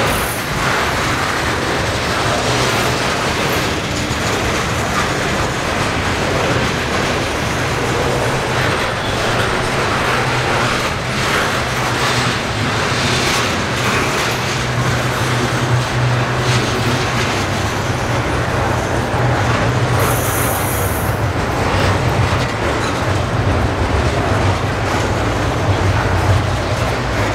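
Freight train cars rolling past close by: a steady rumble and clatter of steel wheels on the rails, with a low steady hum underneath. About twenty seconds in there is a brief high-pitched squeal. The mid-train GE ES44AC distributed-power locomotive draws up near the end.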